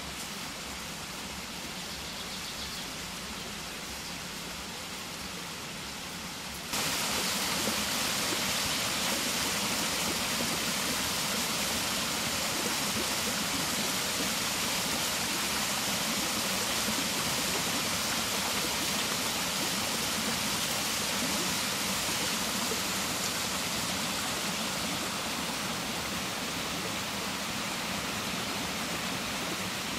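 Steady rush of water pouring at a water mill's overshot bucket wheel; about seven seconds in it turns suddenly louder and hissier, then holds steady.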